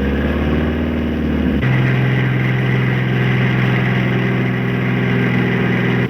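A motor vehicle engine running loud. Its pitch shifts for about the first second and a half, then cuts abruptly to a steady drone.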